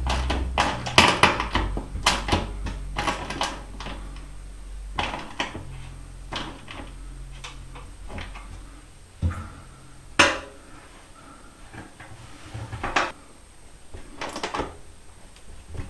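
Clicks and knocks of hand tools and bolts being tightened through the wooden face board of attic stairs: a quick run of clicks for the first few seconds, then a handful of separate knocks.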